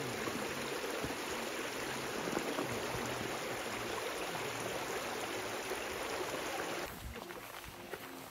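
Steady rushing noise that stops abruptly near the end.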